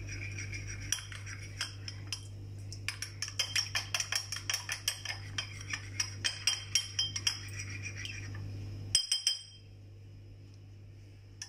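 Metal spoon stirring honey and apple cider vinegar in a small ceramic dish, clinking quickly against the sides several times a second. The stirring stops about nine seconds in.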